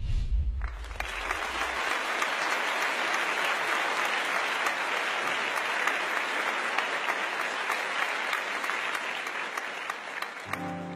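Studio audience applauding, building up about a second in and dying away near the end.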